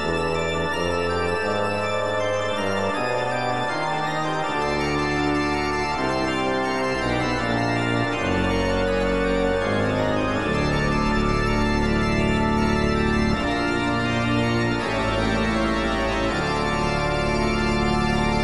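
Background music of held, organ-like chords that change every second or so at a steady level.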